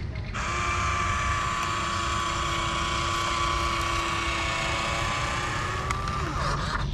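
Electric motor of a Huina RC dump truck's tipper lift whining steadily as it raises the sand-loaded bed. It starts about half a second in and winds down with a falling pitch near the end.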